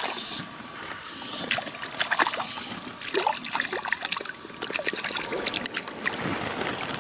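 A fish splashing repeatedly at the water's surface, with drips and small plops of water.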